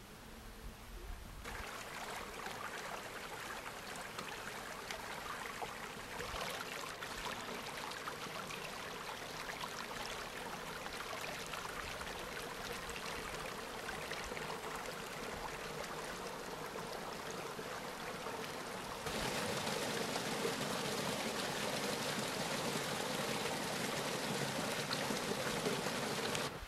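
Steady rush of flowing stream water, an even hiss-like noise with no pitch to it. It comes in about a second and a half in and grows louder about two-thirds of the way through.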